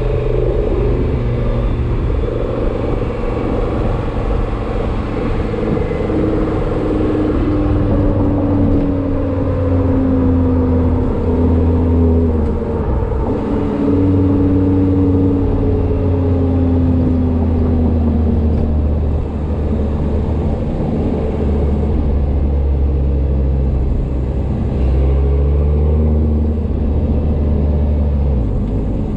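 A car running with a steady low engine drone and a whine above it that slowly glides down and back up in pitch several times. It is the whining whose cause the owner is unsure of, not knowing whether it is normal.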